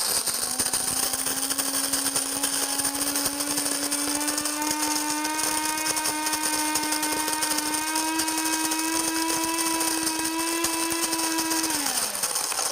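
Cuisinart DBM-8 Supreme Grind electric burr coffee grinder grinding beans at its medium setting: a steady motor whine over a grinding hiss, its pitch creeping slightly upward. Near the end the whine falls away and stops as the grinder shuts off by itself after grinding the set amount.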